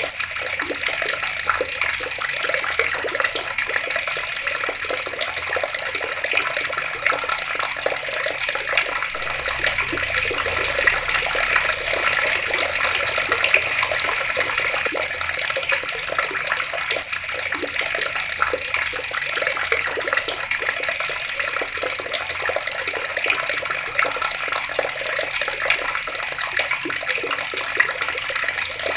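Water flowing steadily from a running tap, splashing without a break.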